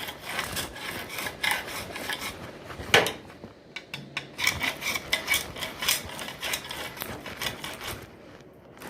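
Quick, repeated scraping and rubbing strokes as old silicone is scraped out of a sliding shower door's channel, with one sharp knock about three seconds in. The scraping dies down near the end.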